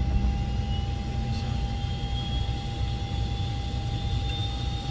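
ATR turboprop aircraft engine running, heard in the cockpit. It makes a steady low rumble with a steady mid-pitched tone. A faint high whine rises slowly in pitch.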